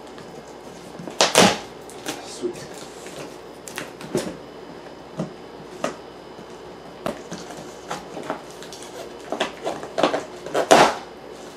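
Large cardboard shipping box being opened and handled: scattered scrapes, knocks and rustles of cardboard, the loudest about a second in and near the end.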